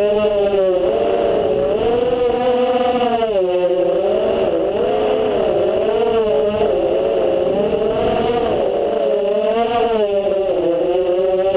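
FPV quadcopter's motors and propellers whining in flight, the pitch rising and falling again and again as the throttle changes.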